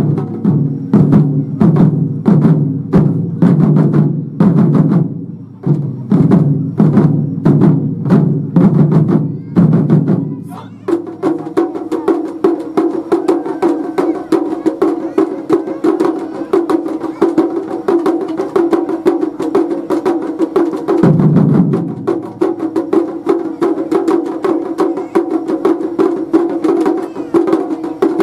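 Japanese taiko drum ensemble playing: for about ten seconds, regular deep strikes on the large drums, then a faster, denser rhythm on higher-pitched drums, with a brief return of deep drum strokes about 21 seconds in.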